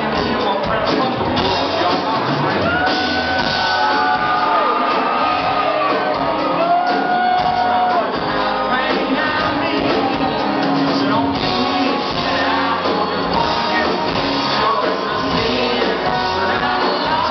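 Live band playing a country-rock song (acoustic and electric guitars, bass, drums) with singing, heard from within the crowd. Several long held notes glide in the first half, and audience members shout over the music.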